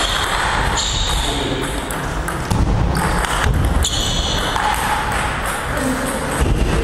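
Table tennis rally: the celluloid ball clicking off the paddles and bouncing on the table in a quick series of sharp ticks, stopping when the point ends near the end.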